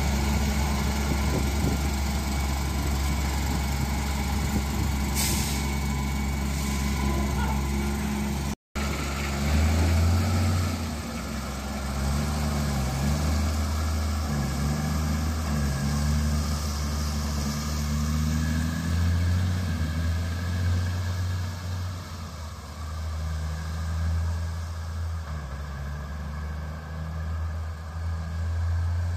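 Farm tractor's diesel engine running steadily, then, after a short break, pulling a loaded low-loader trailer away, its note shifting with load and growing somewhat fainter toward the end.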